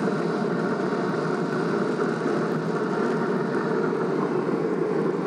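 Pellet grill running with its lid open: a steady, even whooshing hum from its fan and fire pot.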